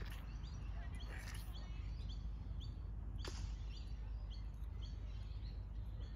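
Small birds chirping repeatedly over a steady low outdoor rumble, with a few brief clicks, the sharpest about three seconds in.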